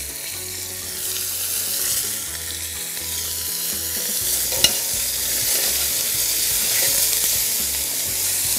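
Lamb shanks and carrot pieces sizzling as they fry in their own fat in a stainless steel pot, stirred with a metal utensil. One sharp clink about four and a half seconds in, as the utensil strikes the pot.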